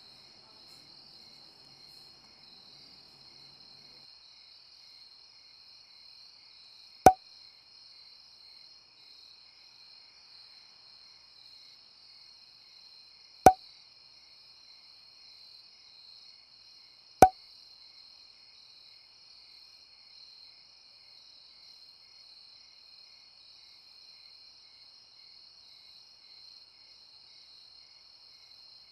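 Crickets chirping steadily in a high, even drone. Three short, sharp message-notification pops stand out, about seven, thirteen and seventeen seconds in.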